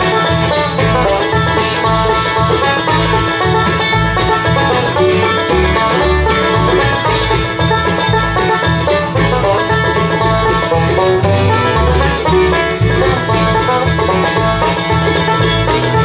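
Bluegrass band playing an instrumental break: banjo, guitar, mandolin, fiddle, dobro and bass over a steady, even bass beat, with no singing.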